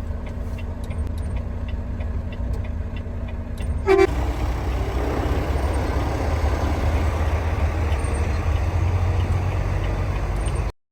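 Truck engine rumbling low and steady, with one short horn toot about four seconds in. After the toot the engine noise grows louder, then the sound stops abruptly near the end.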